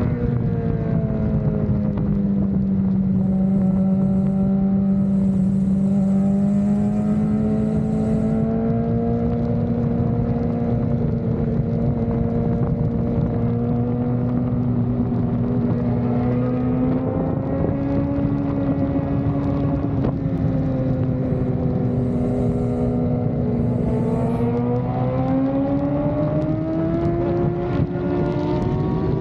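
Superbike engine running at a steady cruise, a continuous drone that dips slightly early on and climbs in pitch over the last few seconds as the bike speeds up.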